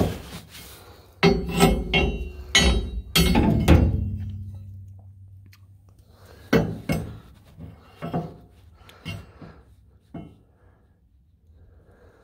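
Metal clanking and knocking: about a second in comes a quick run of six or so sharp, ringing hits on steel parts, the last dying away slowly, then scattered lighter knocks.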